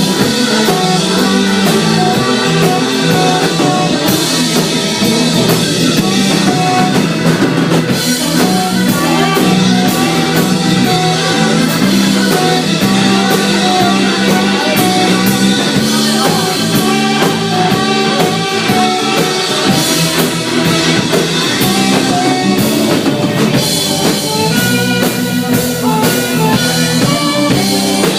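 Rock band playing an instrumental passage: drum kit and guitars over a steady beat.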